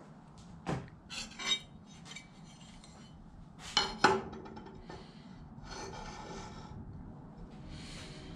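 Metal parts and tools being handled on a table saw during a squareness check: a few short scrapes and knocks, a sharper ringing metal clink about four seconds in, and longer rubbing scrapes later on.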